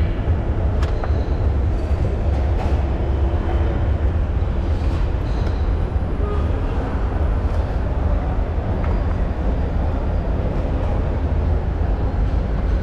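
Steady low rumble of a railway station's ambience, with a few faint clicks and short tones over it.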